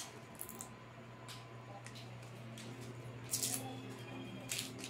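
Small plastic toy packaging rustling and crinkling in a few short bursts as it is handled and pulled open, over a low steady hum.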